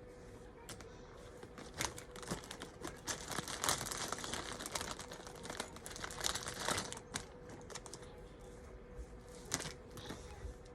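Small plastic Lego pieces clicking and clattering as they are handled and pressed together, a quick run of clicks that thickens in the middle and thins out toward the end.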